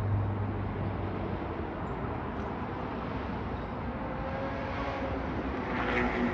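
Steady distant road traffic and city background noise, with a low hum that fades out about a second and a half in and a slight swell near the end.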